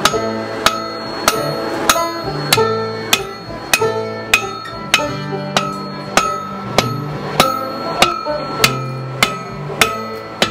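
Blacksmith's hand hammer striking a red-hot bar on an anvil in a steady rhythm, roughly three blows every two seconds, each blow leaving a short metallic ring. Background music plays underneath.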